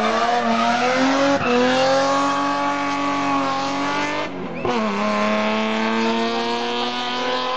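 BMW E30 rally car engine at full throttle accelerating out of a hairpin and up the road. Its pitch climbs steadily through the gear, breaks off for an upshift about four and a half seconds in, then climbs again.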